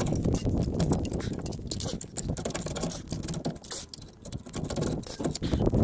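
A steel spanner clicking, knocking and scraping against a car's brake caliper and pads as it is used as a makeshift lever in place of a screwdriver: quick, irregular metallic taps.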